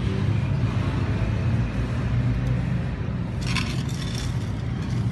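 Steady low rumble of road traffic, with a short metallic clink about three and a half seconds in as a basting brush is dipped into a steel bowl of glaze.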